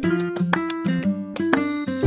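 Background music: a quick melody of short pitched notes, several a second.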